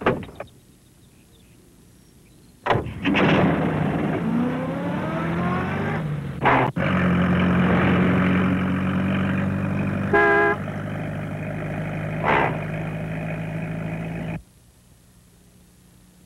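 Two short knocks, then a small van's engine starts and climbs in pitch as it pulls away, settling into a steady drone. The horn gives a short toot about ten seconds in, and the engine sound cuts off suddenly near the end.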